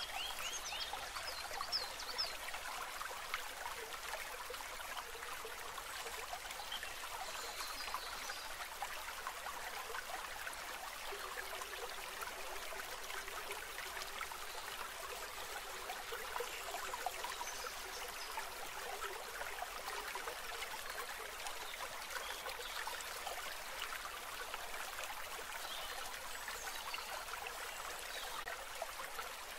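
Water trickling and babbling steadily, like a small stream, with a few short high chirps near the start.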